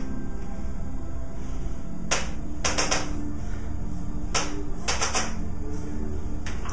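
Impulse chiropractic adjusting instrument firing sharp clicking thrusts, some single and some in quick runs of three, set low for a toddler's spine. Faint background music.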